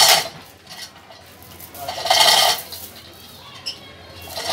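Borewell pipe being hauled up on a chain and pulley slung from a wooden tripod: three loud bursts of clanking and straining about two seconds apart, one with each heave.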